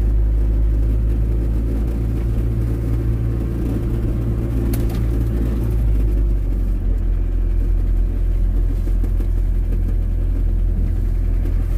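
Truck engine and road rumble heard from inside the cab while driving, a steady low drone. The engine note shifts lower about halfway through, and there is one short click a little before that.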